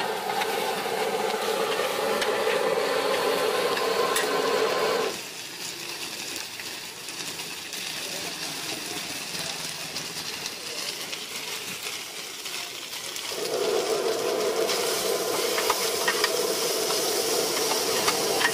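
Radish cake and bean sprouts sizzling on a large flat iron wok while a metal spatula scrapes and turns them, with sharp scraping clicks. A steady hum runs under it for the first five seconds, drops away, and returns about thirteen seconds in.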